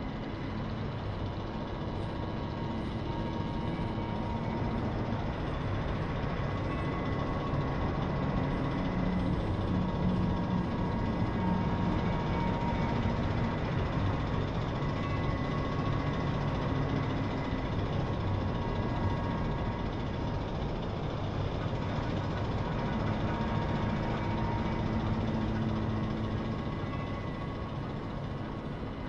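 A steady, dense drone with faint held tones over it, swelling around the middle and again near the end, like an ambient sound-design soundtrack of machinery.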